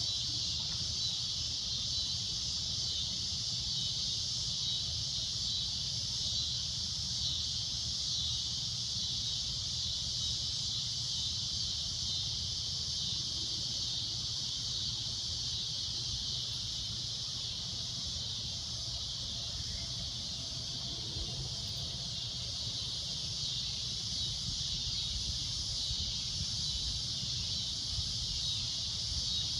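Cicadas droning: a shrill, high-pitched buzz that holds steady without a break.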